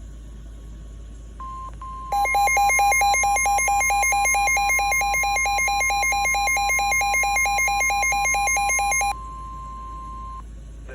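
Emergency alert attention tones. A steady tone of about 1 kHz starts about a second and a half in. From about two seconds in, a loud alarm that switches rapidly between two pitches, several times a second, sounds over it for about seven seconds and then stops. The steady tone carries on alone and cuts off shortly before the end.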